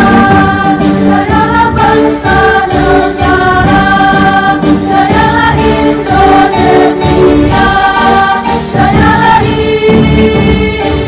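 Choir singing a song with instrumental backing and a steady beat.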